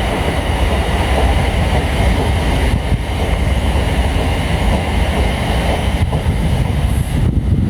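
Diesel train running through the station, a loud, steady rumble.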